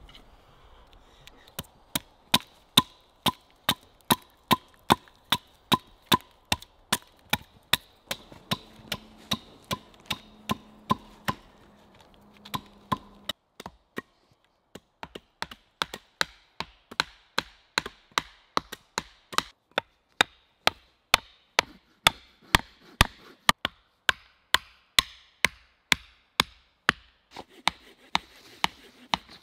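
Hatchets striking wood: a steady run of sharp knocks, about two a second, with a short pause about halfway through.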